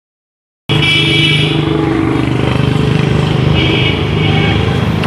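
Silence, then a bit under a second in, busy road traffic starts abruptly: vehicle engines running with horns honking, twice.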